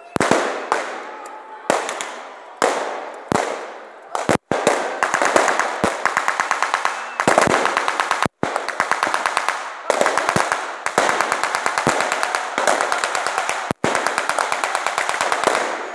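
Blank gunfire in a reenacted battle: separate rifle shots, each echoing, for the first few seconds, then long strings of rapid shots like machine-gun fire, with short pauses between them.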